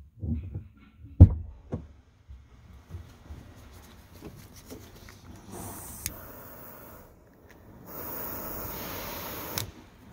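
A few knocks and handling taps, one sharp knock about a second in, then a butane torch hissing steadily for about two seconds near the end before it cuts off. The torch is warming the glass so the resin fills the chip's splits.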